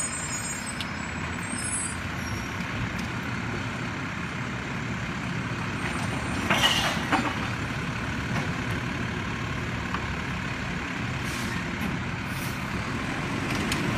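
Mack LEU garbage truck idling at the curb while its Labrie automated side-loader arm lifts and empties a trash cart, with a short loud burst of noise about halfway through.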